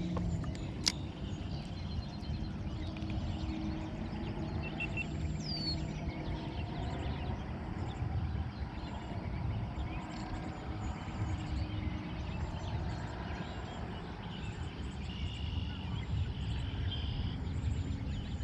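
Outdoor ambience with a low wind rumble on the microphone and a few faint bird chirps, and a single sharp click about a second in.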